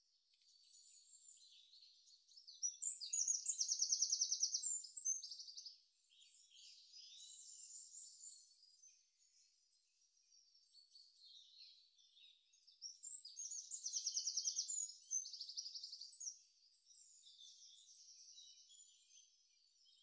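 Songbird singing: scattered high chirps with two loud, fast trills, one a few seconds in and another about two-thirds of the way through.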